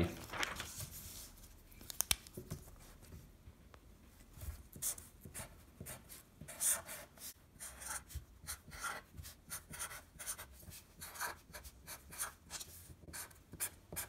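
Permanent marker writing on paper: a run of short, faint scratching strokes in small clusters, one cluster per letter, starting a few seconds in.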